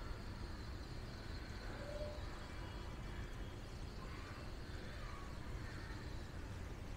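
Quiet outdoor ambience: a steady low rumble of background noise with a few faint, short chirps.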